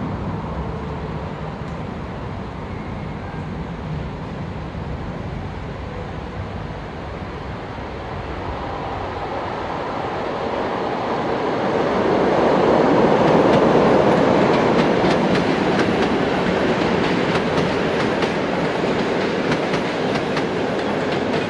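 Locomotive-hauled passenger train rolling past over the station points: a rumble that swells to its loudest about two-thirds of the way through, then the clickety-clack of the coach wheels over rail joints and switches.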